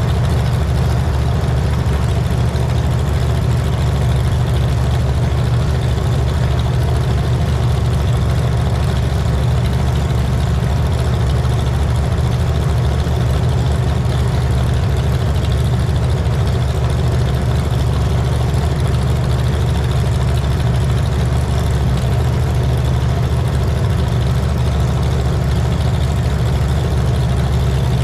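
A vehicle engine running steadily at one speed, deep and unchanging throughout, with no revving.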